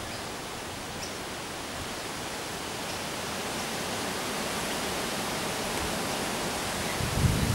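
Steady outdoor hiss of wind through roadside bushes and trees, slowly growing louder, with low rumbles of wind on the microphone near the end.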